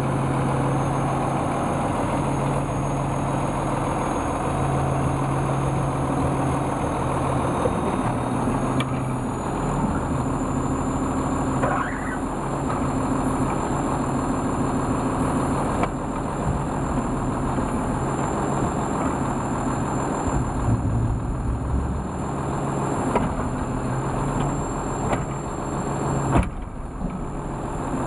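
2005 Autocar WXR garbage truck's diesel engine idling steadily.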